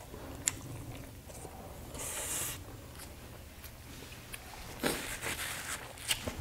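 Close-miked chewing of a mouthful of rice and grilled skewered meat, with wet mouth clicks and smacks. About five seconds in comes a brief rustle as a paper napkin is wiped across the mouth.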